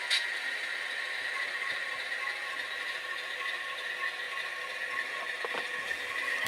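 Tsunami sound decoder in an HO-scale Athearn U50 model locomotive playing dual GE diesel engines idling through its small speakers, a steady, tinny hum, with a sharp click just after the start and a few faint clicks about five and a half seconds in.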